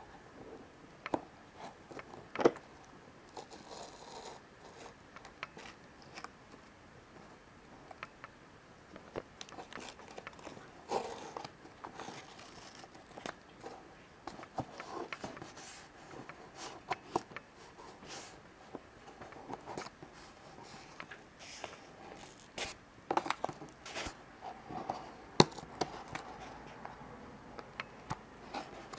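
Fingernails picking at and peeling packing tape off a cardboard box: irregular scratches, clicks and short tearing sounds.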